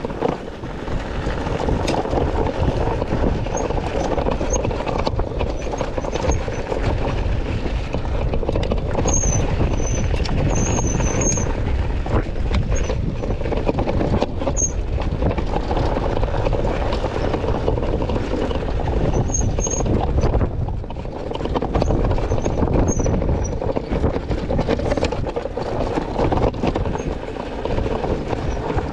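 Wind buffeting the microphone and the rough rattle of an ONYX RCR electric bike riding over a rocky dirt trail, with a few brief high squeaks.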